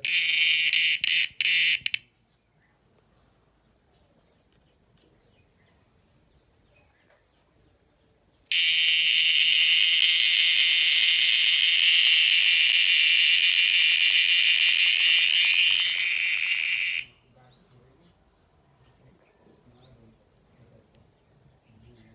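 A night-calling insect's loud, high buzzing call in two bouts: a broken one of about two seconds at the start, and a steady one of about eight seconds beginning about eight seconds in that cuts off sharply. Between and after the bouts a faint, thin, steady high note, like a more distant cricket.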